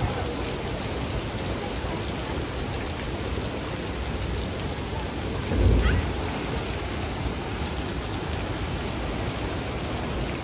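Water from the river-rapids ride's spray jets falling and splashing onto the channel: a steady, rain-like hiss of splashing water. About halfway through there is a brief, louder low thump.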